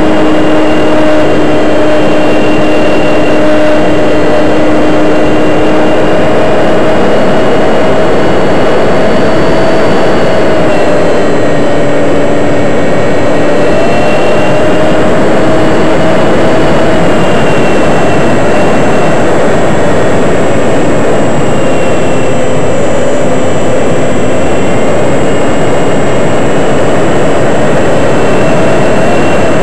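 Electric motor and propeller of a 55-inch RC Cessna 182 model plane in flight, heard from a camera on board. It makes a loud, steady whine with small drifts in pitch over heavy rushing air noise.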